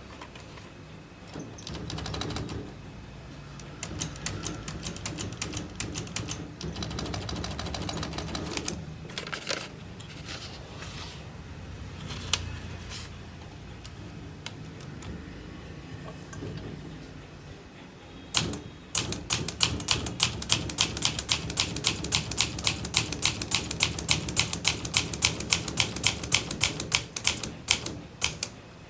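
Olivetti Lettera 32 portable manual typewriter: scattered clicks and handling sounds over a low rumble, then from about two-thirds of the way in, fast steady typing with sharp key strikes several times a second.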